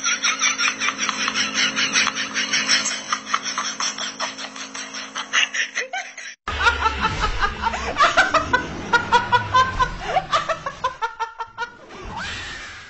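Laughter in quick repeated bursts, cut off sharply about six and a half seconds in, followed by another stretch of higher-pitched laughter.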